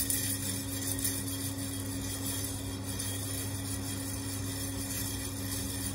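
Green coffee beans rattling and rolling inside a red clay Japanese coffee roaster (horoku) shaken in steady circular motions, early in the roast, with the beans still raw and well before first crack. A steady low hum runs underneath.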